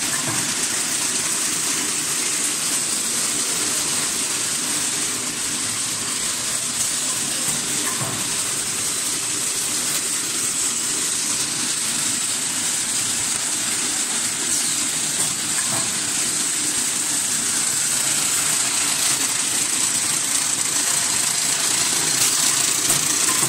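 Automatic paper straw counting and packing machine running, a steady mechanical din with a constant high hiss over it and a few faint ticks.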